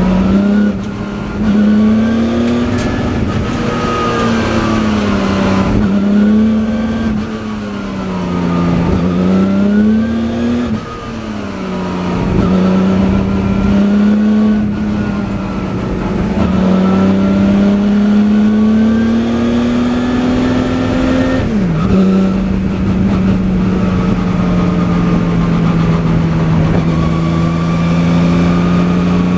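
Jaguar Broadspeed XJ12C's 5.3-litre V12 racing engine, heard on board at race speed. Its note climbs steadily under power and drops at shifts and braking several times, with a sharp drop a little past the middle before running on at a steady pitch.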